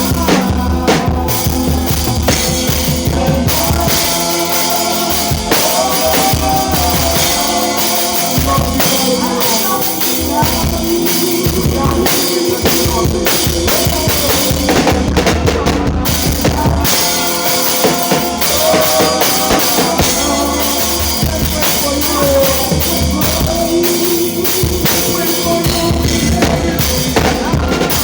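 Live gospel worship band playing a groove, the drum kit loud in front with kick, snare and cymbals over bass and other instruments. The recording is rough.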